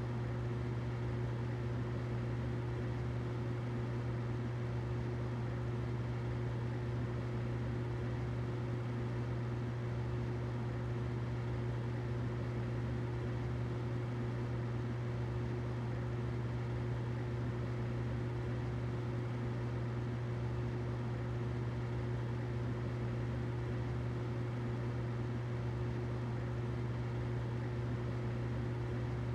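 Humidifier running steadily: a constant low hum with a fainter higher tone over an even hiss.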